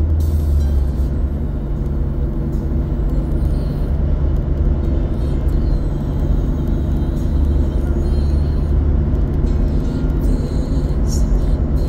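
Steady low road rumble of a car driving on a highway, heard from inside the cabin, with background music over it.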